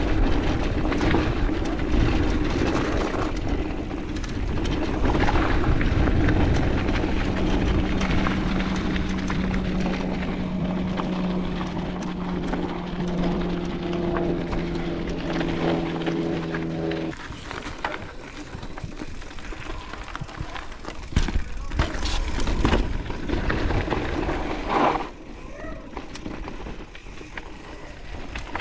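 Mountain bike riding down a dirt trail, with wind rushing over the chest-mounted microphone and tyres rumbling over the ground. A steady buzz runs through the middle and stops suddenly. After that the ride sounds quieter, with a few sharp knocks and rattles from bumps.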